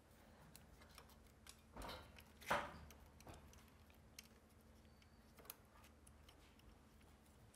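Faint clicks and scrapes of metal tweezers and a thin wire being worked through an electric scooter's handlebar stem, with one louder short scrape about two and a half seconds in.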